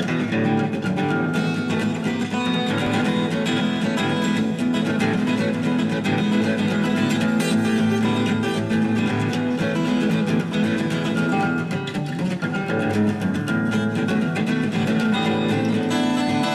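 Background music: acoustic guitar played with plucked and strummed notes at a steady level.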